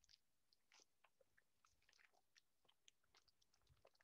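Near silence, with only faint scattered crinkles and clicks of foil gift wrap being handled around a bottle.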